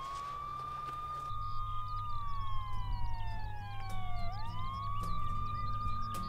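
Police car siren wailing: a tone that rises quickly, holds, then slides slowly down before rising again, about every four seconds. A low steady hum comes in underneath about a second in.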